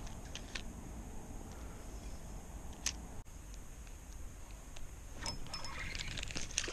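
Spinning reel being handled and cranked: scattered small mechanical clicks, becoming a quick run of clicks and rattles about five seconds in.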